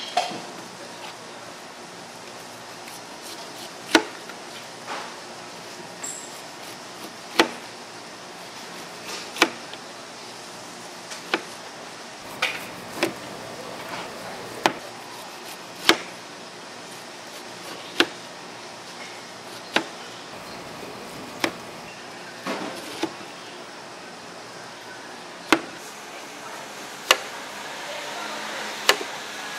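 Knife chopping fresh fruit on a cutting board: single sharp chops, irregularly spaced about one to two seconds apart, over a steady background hum.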